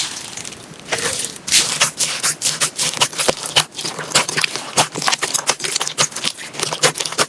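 Slime being squeezed and worked by hand, giving a dense, irregular run of small crackling and popping clicks.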